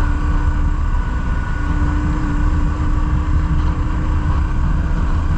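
BMW R1150GS Adventure's boxer-twin engine running steadily while riding at an even pace, under a heavy low rumble of wind on the microphone.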